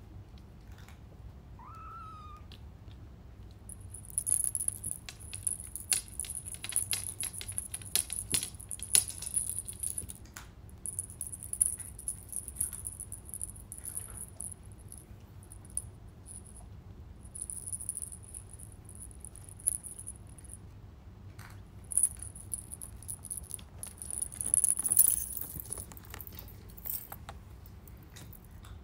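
A small bell on a cat wand toy jingling in repeated bursts as the toy is jiggled, mixed with claws tapping and scrabbling on a glass tabletop. About two seconds in, a kitten gives one short, rising mew.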